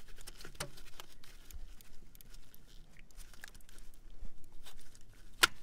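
A hand rustling and scraping among wiring and engine parts while working the oil pressure sender's harness connector on a GM 6.5L diesel, with small clicks throughout. Near the end comes one sharp click, the clip letting go as the connector pops off.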